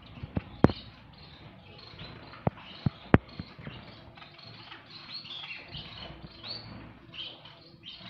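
White Bengalese finches chirping softly, short high calls that come thicker in the second half. There are also a few sharp clicks in the first half, the loudest sounds here.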